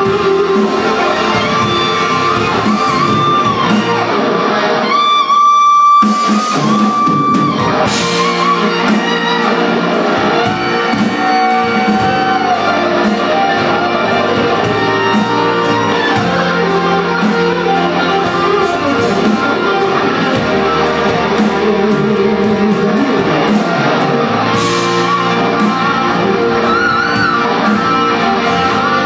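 Live rock band playing: a lead electric guitar with held notes, bends and vibrato over bass guitar and drums. About five seconds in, the bass and drums drop out briefly under one held guitar note, then the full band comes back in.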